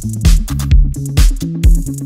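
Background music with a steady electronic dance beat, about two kick-drum hits a second over a bass line.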